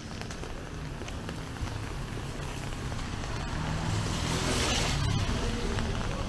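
A motor vehicle passing on a wet road, its tyre hiss growing louder to a peak about three-quarters of the way through, over a low engine hum.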